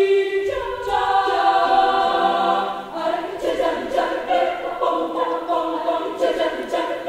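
Indonesian choir singing a cappella, with no instruments: the voices hold chords, step down in pitch about a second in, then turn into a busier, rhythmic passage about three seconds in.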